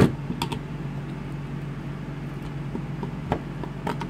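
Hard plastic clicks and taps from an opened DeWalt XR lithium-ion battery pack's case and cell pack as they are handled on a bench. There is a sharp click at the start, then a few lighter ones, over a steady low hum.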